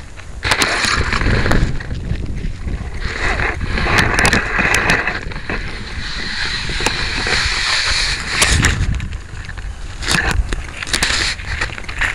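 Rustling, scraping and clicking handling noise picked up by a model rocket's onboard video camera microphone as the rocket is lifted out of the grass and carried. The noise comes in uneven surges with scattered sharp clicks.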